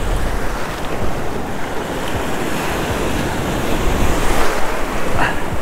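Ocean surf washing in and foaming through the shallows, a steady rushing wash, with wind noise on the microphone.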